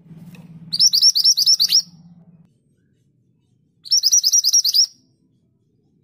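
Scarlet minivet singing two fast trilled phrases, each about a second of rapidly repeated high whistled notes, a few seconds apart.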